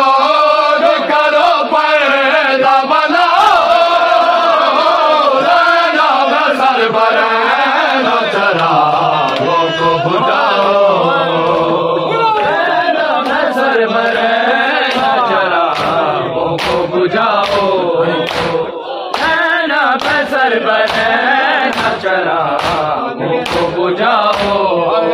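Men's voices chanting an Urdu noha (Shia lament) together in unison. Through the second half, regular sharp slaps of hands striking chests (matam) keep the beat under the chant.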